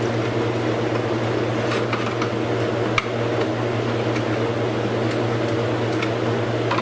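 Steady mechanical hum with a few light clicks and taps from handling the tail-light parts.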